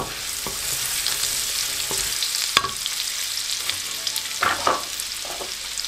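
Spices frying in hot ghee in a pan: cumin, chopped ginger and whole fenugreek seeds sizzling with a steady hiss. A spoon stirs them, clicking against the pan a few times in the first few seconds.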